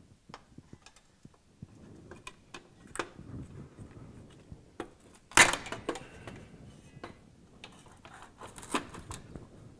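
Sheet-metal DuraVent DVL chimney adapter scraping and clinking as it is twisted and pushed up into the round ceiling support box, with a louder metal clatter about five seconds in and a few more knocks near the end.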